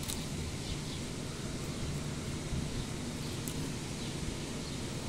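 Steady outdoor background noise with leaves rustling and a few faint, short clicks.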